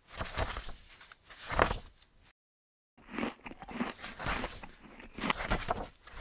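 Stiff paper wall-calendar pages rustling and crinkling as they are lifted and flipped over, in several separate bursts, with a short gap of dead silence a little over two seconds in.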